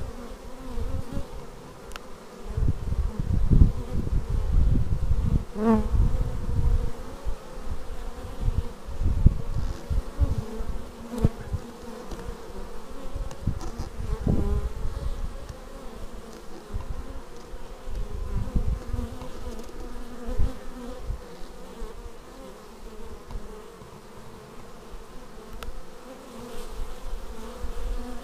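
Honeybees buzzing at the hive entrance: a steady hum of many wings, with single bees flying close past the microphone, one passing with a wavering pitch about six seconds in. Irregular low rumbling bumps come and go, heaviest from about two to ten seconds in and again around fourteen seconds.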